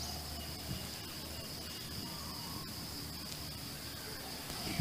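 Insects buzzing in a steady, unbroken high-pitched drone, with a faint low hum beneath.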